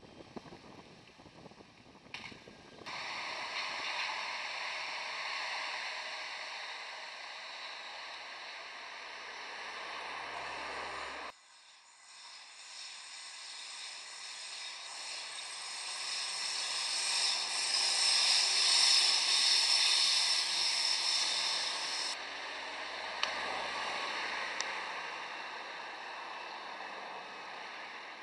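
Tram running along the track: a steady rolling noise of wheels on rails that swells as it comes close and fades toward the end, with abrupt changes in level where the footage cuts.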